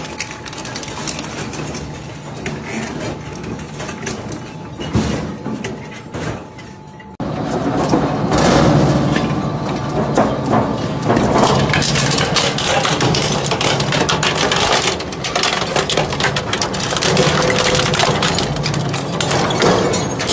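Twin-shaft industrial shredder's toothed cutter discs grinding and crunching scrap metal, with a run of cracking and snapping. About seven seconds in the sound jumps abruptly to a louder, denser crunching.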